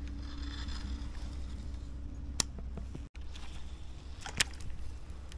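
A cast with a baitcasting reel: the spool whirs briefly as line pays out, then there are two sharp clicks, over a steady low rumble.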